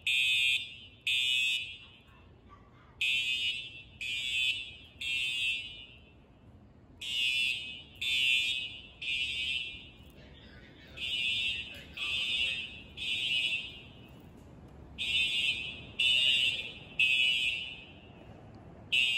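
Simplex TrueAlert horn strobes sounding the temporal-3 evacuation signal of a fire alarm system: groups of three loud horn blasts about a second apart, each group followed by a pause of about two seconds, repeating.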